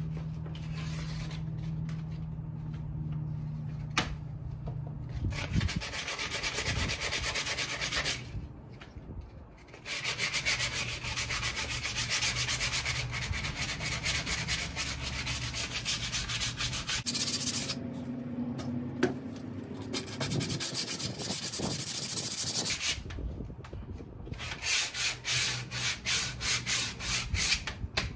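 Hand-sanding a pink-painted RV cabinet door with a sanding block: spells of back-and-forth rubbing with short pauses between them. Near the end the strokes quicken to about two a second.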